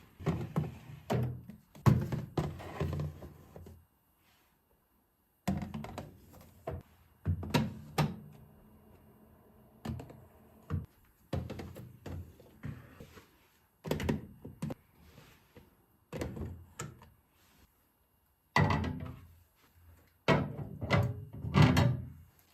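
Kitchen handling sounds: a string of thunks and knocks as containers and utensils are set down and moved about, coming in short clusters with a couple of brief silent gaps.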